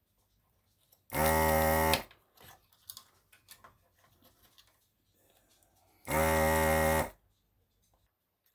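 Vacuum desoldering tool's pump buzzing in two bursts of just under a second each, sucking molten solder from the board's through-hole joints as components are removed. Faint small clicks and scrapes come between the bursts.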